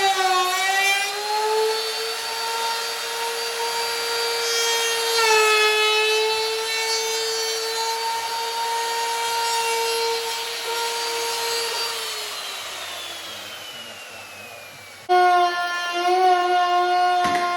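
Electric wood router routing the edges of cabinet wood, its motor making a steady high whine that dips briefly as it takes the cut. About twelve seconds in the whine falls in pitch and fades as the motor winds down. Near the end it comes back abruptly at a lower pitch.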